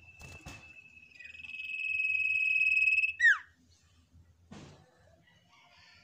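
Common iora (sirtu) giving one long, steady, trilled whistle that swells in loudness for about three seconds, then snaps off in a quick falling note. Two brief rustles come before and after it.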